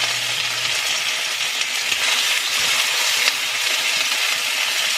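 Thin slices of pork frying in hot oil in a cast-iron pot, a steady crackling sizzle as the meat browns.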